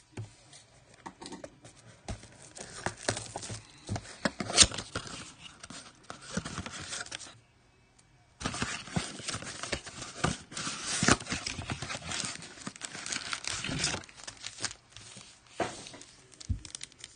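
Cardboard Panini Prizm blaster box being torn open and its foil card packs pulled out and handled: tearing, scraping and crinkling with many small clicks, pausing for about a second midway.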